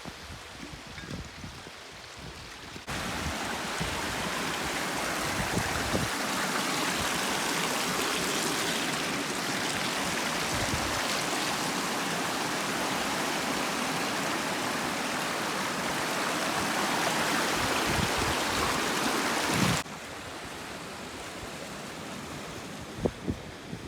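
Mountain stream rushing over rocks, a steady sound of running water that starts suddenly about three seconds in and cuts off suddenly near the end. Quieter outdoor background before and after it.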